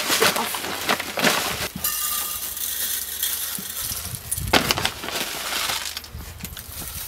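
Clear plastic bag crinkling and sawdust rustling as it is scooped by hand into a stainless-steel Smokai cold-smoke generator, with a few sharp clinks about four and a half seconds in.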